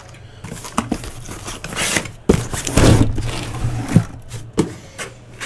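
Cardboard shipping case being opened and its sealed hobby boxes slid out: scraping and rustling cardboard with a few sharp knocks.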